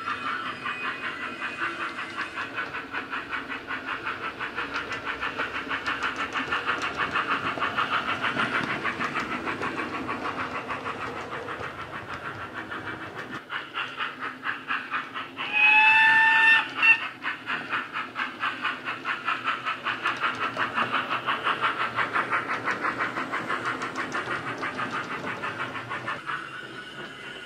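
Hornby GWR Dean Single model locomotive's Wheeltappers DCC steam sound through a small sugarcube speaker: an even rhythm of exhaust chuffs as it runs. About halfway through it gives a whistle blast, the loudest moment, followed by a brief second toot.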